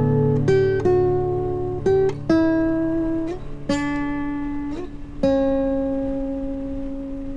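Acoustic guitar music: single plucked notes over a low sustained bass note, a few of them sliding in pitch, the last note ringing out and slowly fading.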